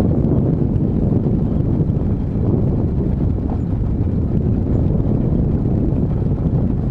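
Wind buffeting the microphone: a steady low rush.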